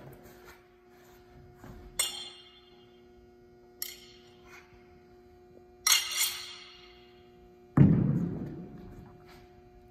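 Steel sai clinking sharply three times as they are turned and handled, then a heavier thud with a long ringing decay as the sai strike the floor, over a faint steady hum.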